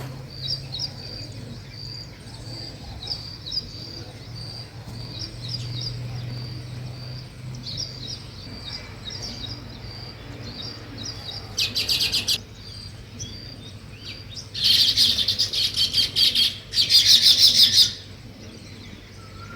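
Small birds chirping: a steady run of short, high repeated chirps, then three loud bursts of fast chattering in the second half.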